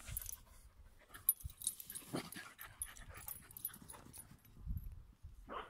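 Puppy making a few short, faint vocal sounds while it plays with a tennis ball.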